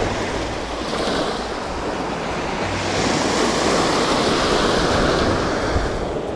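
Sea waves washing onto the shore, one surge building about halfway through and falling away near the end, with wind rumbling on the microphone.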